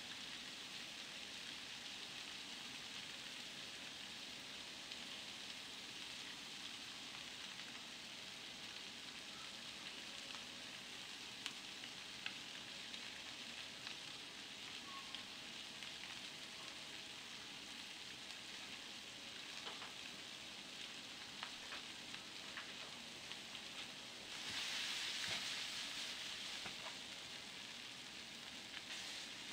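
Steady, faint hiss with a few soft ticks, the hiss growing louder for a couple of seconds near the end.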